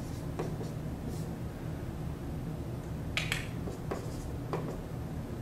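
Marker writing on a whiteboard: a few short squeaks and taps from the strokes, the clearest about three seconds in, over a steady low hum.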